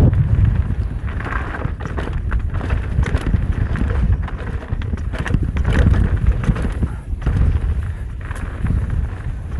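Mountain bike descending rough trail: wind buffeting the microphone in a steady low rumble, with frequent irregular knocks and rattles from the bike over roots and rocks.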